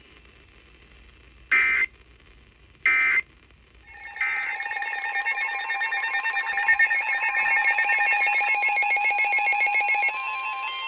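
Emergency Alert System tones: two short, shrill digital data bursts about a second and a half apart, then about four seconds in a loud, sustained two-tone attention signal with a fast warble that settles into a single steady tone near the end.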